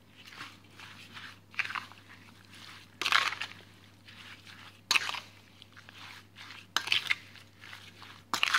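A spoon mixing raw chicken and pork strips with roasted sesame seeds and marinade in a bowl. It makes a wet stirring, squishing sound in five strokes, about one every one and a half to two seconds.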